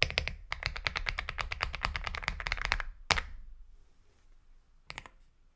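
Fast typing on an Aula F75 mechanical keyboard with Star Vector switches: a rapid run of keystrokes for about three seconds ending in one louder stroke, then a pause with a couple of single key presses near the end.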